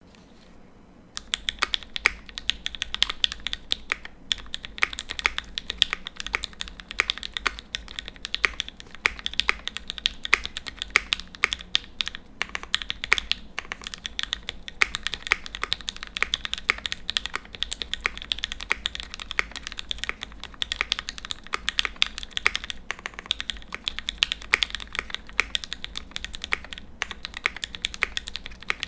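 Fast, continuous typing on a gasket-mounted Think 6.5 V2 mechanical keyboard with Turquoise Tealio linear switches, an FR4 plate and GMK keycaps, its sound muted by foam and gaskets. The typing starts about a second in, with a few brief pauses.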